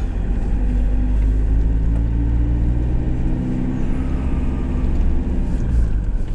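Iveco Daily light truck's engine running with road noise, heard from inside the cab while driving: a steady low drone whose pitch wavers slightly.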